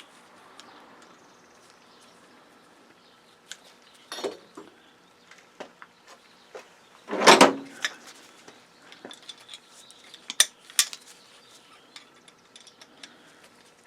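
Small metal parts of a circuit breaker clinking and clattering as it is handled and twisted apart by hand. There are scattered clicks, a louder clatter about seven seconds in, and two sharp clinks a little after ten seconds.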